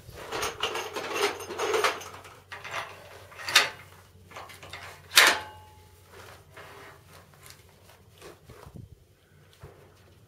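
Metallic clatter and clicks of handling ammunition and loading a Barrett 99-1 single-shot .50 caliber bolt-action rifle. Two sharp clacks come about three and a half and five seconds in, with lighter ticks after.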